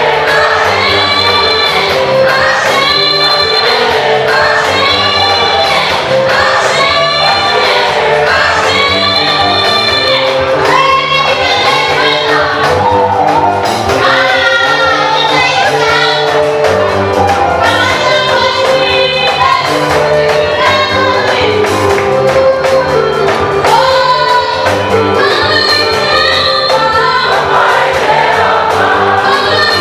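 Choir singing an African gospel song with a female lead voice over a steady band accompaniment.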